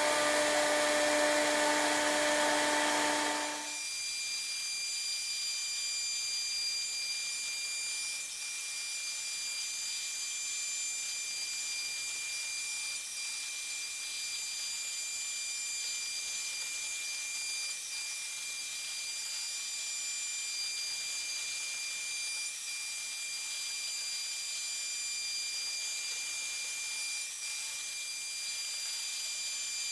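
CNC router spindle running with a steady high-pitched whine and hiss. About three and a half seconds in, a louder, lower hum that was running with it stops, and the sound drops to the spindle's whine alone.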